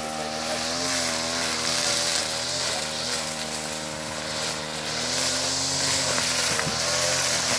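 Two-stroke brush cutter engine running steadily, its pitch wavering slightly up and down.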